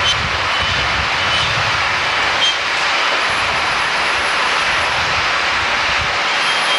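Sawmill machinery running, a steady loud mechanical rush with no distinct strokes or changes.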